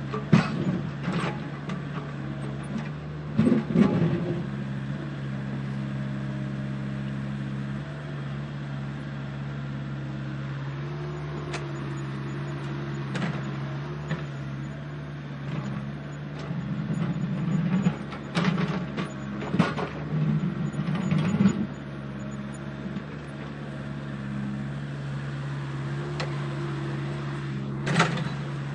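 Steady hum of a radio-controlled construction machine's motor, with clacks and crunching of gravel now and then, in a cluster about two-thirds of the way in.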